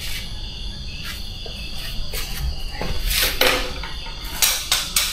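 Insects trilling steadily at a high pitch, with a few brief noisy rustles about three seconds in and again near the end.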